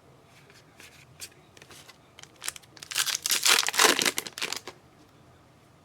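A trading card pack wrapper being torn open and crinkled. A few light crackles come first, then a loud dense burst of tearing and crumpling lasts about two seconds from around three seconds in.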